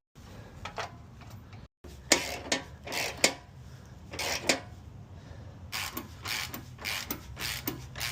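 Hand tools working on a car: a string of short, irregular metallic clicks and scrapes, several a second at times.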